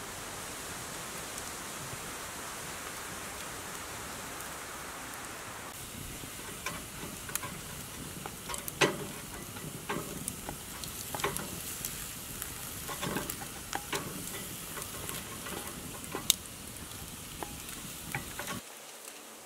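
Minced meat sizzling steadily in a Petromax cast-iron Dutch oven over a campfire. From about six seconds in, a wooden spatula stirs it, scraping and clicking against the pot.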